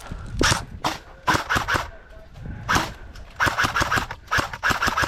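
Airsoft guns firing cover fire: single shots mixed with quick bursts of several rapid shots in a row.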